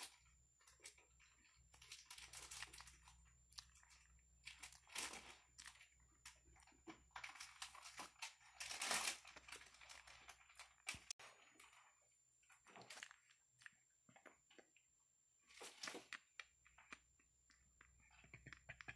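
Java macaques grooming a person's hair and face right beside the microphone: soft crackling, rustling and picking sounds of fingers working through hair and fur, in irregular bursts, loudest about nine seconds in.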